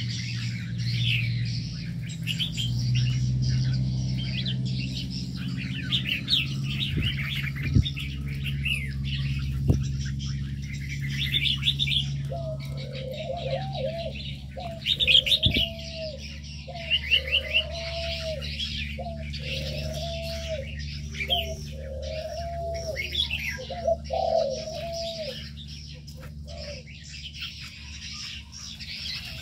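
Many small aviary birds chirping and twittering together, joined from about the middle until near the end by a dove cooing in a steady series of repeated calls. A steady low hum runs underneath, with a few sharp knocks.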